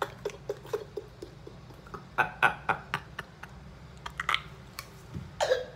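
A man laughing in short, breathy bursts, with the crackle of a plastic margarine sachet being shaken in his hand.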